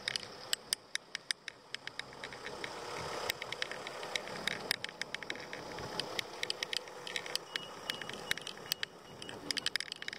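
Bicycle rolling along a rough patched road: steady tyre and road noise with many sharp, irregular clicks and rattles from the bike and its load over the bumps.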